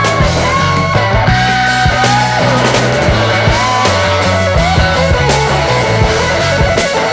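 Background rock music with electric guitar, a steady bass line and a regular drum beat.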